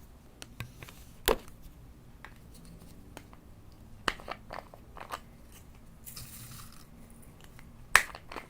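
Slime being squeezed and poked by hand: scattered sticky clicks and crackles, with a loud pop about a second in and another near the end.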